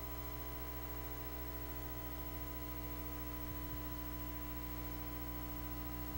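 Steady electrical mains hum: a low drone with a stack of steady higher tones over it, unchanging throughout.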